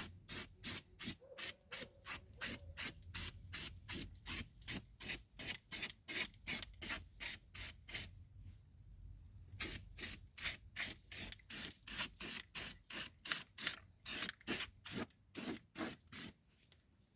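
Aerosol can of Rust-Oleum rubberized black undercoating spraying in short, rapid hissing bursts, about three a second, with a pause of a second or two about halfway through.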